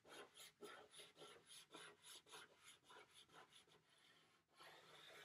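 Black chalk scratching faintly across a drawing in quick short strokes, about four a second, then one longer steadier stroke near the end.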